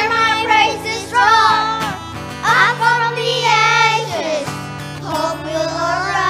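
Boys singing an upbeat worship song into microphones, accompanied by acoustic guitar and sustained chords.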